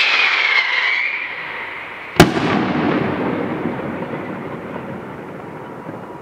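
Aerial fireworks: a hissing rush with a falling whistle for about a second, then a single loud bang about two seconds in that echoes and rolls away slowly.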